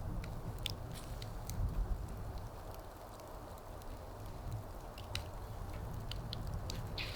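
Wood fire crackling: scattered sharp pops and ticks over a low steady rumble.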